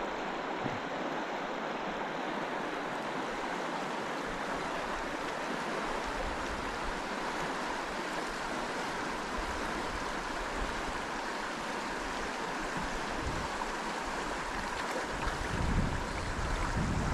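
Steady rush of flowing river water. Low gusty wind buffeting on the microphone comes in near the end.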